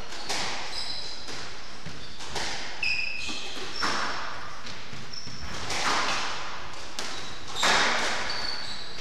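Sports shoes squeaking briefly and repeatedly on a wooden squash court floor, with scattered footsteps and the knocks and thuds of a squash ball.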